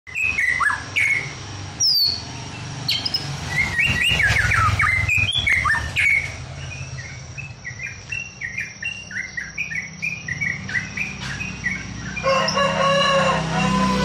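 White-rumped shama singing: varied whistled phrases, then a quick run of short repeated chirps at about three a second. About twelve seconds in, a louder, lower drawn-out sound with several pitches joins.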